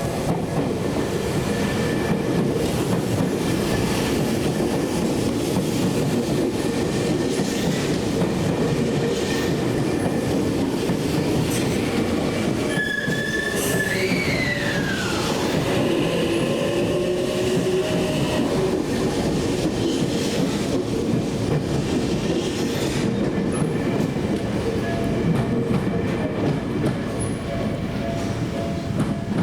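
Tokyu Meguro Line electric commuter train passing close by over a level crossing: a steady rumble and clatter of wheels on the rails with some wheel squeal. About halfway through, an electric whine holds, rises, then falls away. The crossing's alarm tones sound underneath.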